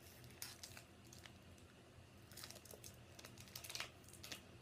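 Faint, scattered crinkles and clicks of a foil Pokémon booster pack wrapper being handled while someone tries to get it open.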